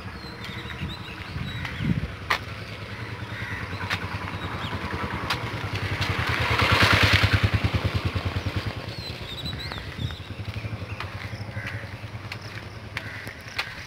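A motor vehicle's engine passing close by: its rapid, even pulsing grows louder to a peak about halfway through, then fades away.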